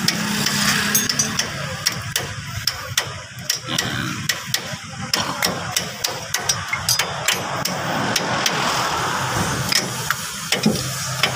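Light metal-on-metal tapping: a steel rod held against a repacked wheel bearing is struck over and over to drive the bearing home into a Foton Tornado's rear hub. The taps are sharp and irregular, several a second.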